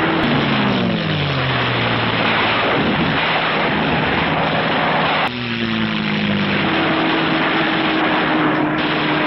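Propeller aircraft engines running, a loud steady drone with a hum note. The pitch falls over the first two seconds; about five seconds in the sound changes abruptly to another falling engine note, then settles back to a steady drone.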